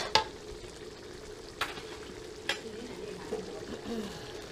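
Metal ladle stirring apple snails in a sizzling sauce in a wok, clanking sharply against the pan four times in the first few seconds. A steady low hum runs underneath.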